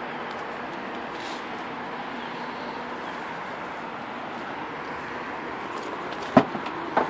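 Steady outdoor traffic noise, then about six seconds in a sharp click and a clack as the Nissan Leaf's rear hatch latch is released and the tailgate is lifted.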